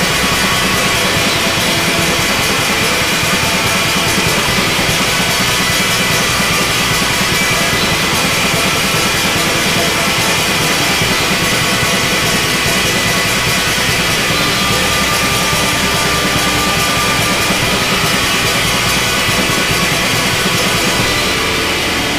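Rock music with a drum kit, steady throughout and easing slightly in level near the end.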